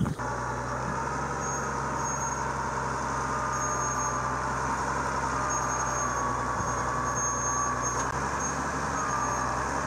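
Farm tractor's diesel engine running steadily while it works a hydraulic log-loading crane, with a thin, slightly wavering whine over the engine note.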